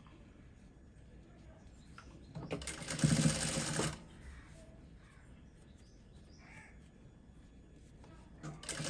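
Sewing machine stitching a neckline in two short runs: a run of about a second and a half a little over two seconds in, and another starting near the end, with only faint background in between.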